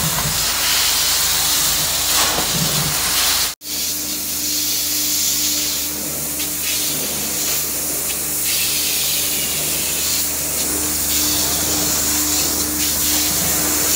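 Truck-mounted carpet-cleaning extraction wand hissing steadily as it sprays and sucks water through the carpet, with a steady machine hum underneath. The sound cuts out for an instant about three and a half seconds in.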